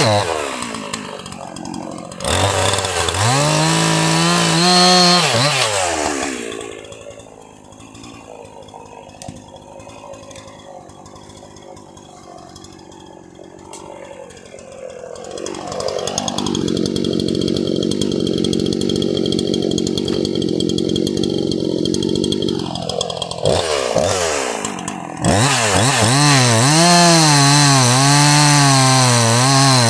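Jonsered 2153 50 cc two-stroke chainsaw engine revved up, dropping back to a low idle for several seconds, then opened up again and held at high revs with its pitch wavering up and down near the end.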